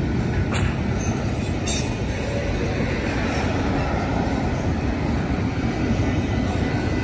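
Union Pacific double-stack intermodal train's well cars rolling past close by, a steady rumble of steel wheels on rail. Two brief sharp clicks come about half a second and a second and a half in.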